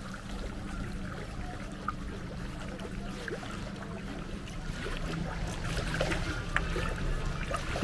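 Water swishing and dripping around a kayak as it is paddled, with a few small splashes or knocks, over a low steady hum.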